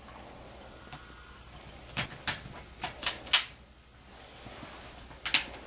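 Sharp plastic clicks and knocks from handling a laptop as it is closed up after a screen replacement: about five in quick succession from two to three and a half seconds in, and another near the end.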